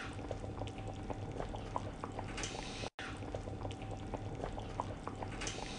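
Food cooking in a pot or pan: a steady hiss with many small pops and crackles, typical of bubbling or sizzling. The sound drops out abruptly for an instant about three seconds in, then carries on.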